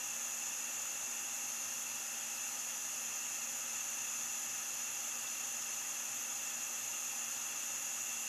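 Handheld propane or MAPP gas torch burning with a steady hiss.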